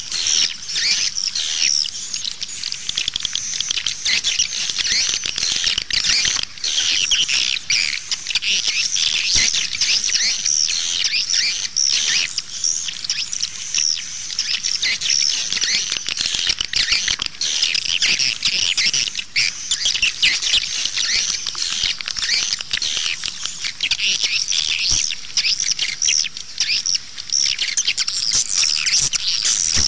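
Recorded swiftlet calls: a dense, unbroken chorus of many rapid, overlapping chirps and twitters at a steady level. This is the outside lure call used in swiftlet bird-nest farming to draw swiftlets to a nest house.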